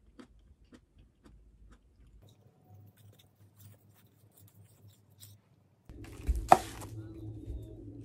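Faint, scattered clicks of a metal fork and spoon against a ceramic plate while pasta is twirled. About six seconds in, the sound gets louder, with a low steady hum and one sudden sharp noise.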